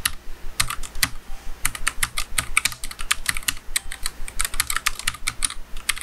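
Typing on a NuPhy Air75 low-profile mechanical keyboard with low-profile Gateron Red linear switches: a quick, even run of key clicks, several a second.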